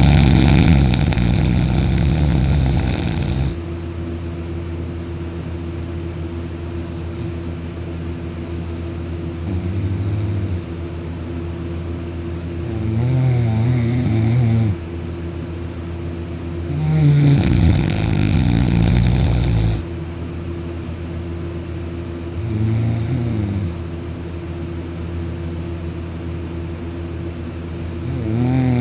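Loud snoring from a sleeper lying on his back with his mouth wide open: six rasping breaths a few seconds apart, the loudest at the start and about two-thirds of the way through, over a steady low hum.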